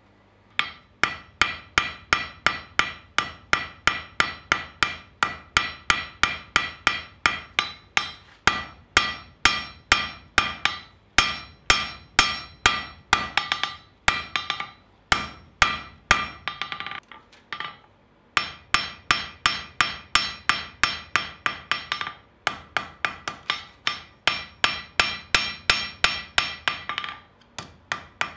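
Hand hammer forging a red-hot blank of coil-spring steel into a scissor blade on an anvil: fast ringing blows, about four a second, in runs broken by short pauses, the longest about seventeen seconds in.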